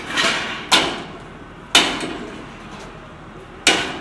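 Demolition strikes: four sharp, hard impacts at uneven intervals, each fading quickly.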